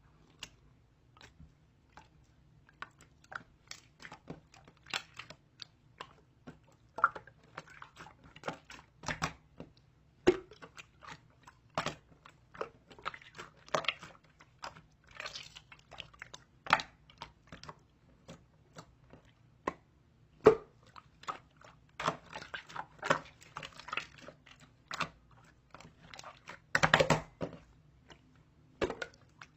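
Irregular sharp clicks and crunchy taps close to the microphone, scattered unevenly, with a denser, louder cluster near the end.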